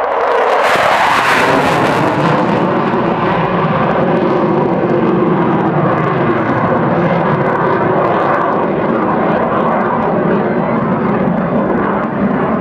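Douglas A-4 Skyhawk jet's turbojet engine on a flying pass. It is loudest and sharpest for the first two seconds as the jet goes by, then settles into a steady jet roar as it climbs away.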